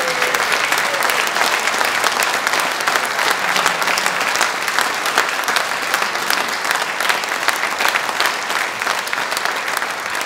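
Steady applause from a large concert audience, with the band members on stage clapping too: a dense, even patter of many hands.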